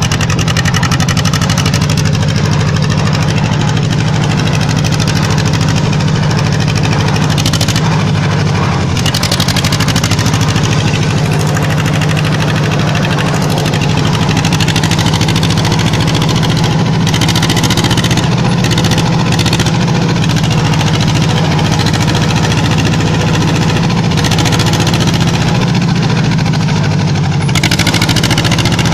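Deutz D3006 tractor's two-cylinder air-cooled diesel engine running steadily while the tractor drives along, heard from the driver's seat.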